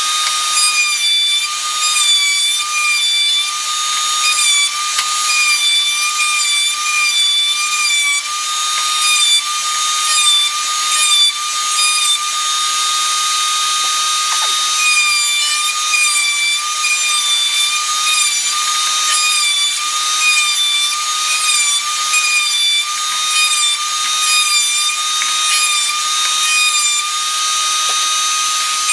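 Electric router spinning a quarter-inch round-over bit in a router table, a loud steady high whine that dips slightly in pitch now and then, as pine blocks are fed past the bit to round over their edges.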